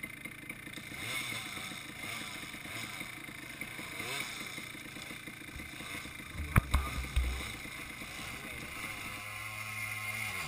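Dirt bike engine running with revs rising and falling as it rides. There is a sharp knock with a few low thumps about six and a half seconds in, then a steadier, lower engine note near the end.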